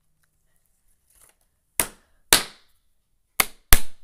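Glitter slime being slapped and beaten by hand: four sharp smacks in two pairs, starting about two seconds in.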